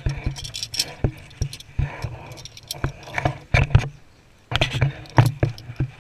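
Irregular metallic clinks, clicks and knocks of zip-line harness gear, carabiners and trolley, mixed with knocks from the camera being handled. They come in clusters, with a short lull about four seconds in.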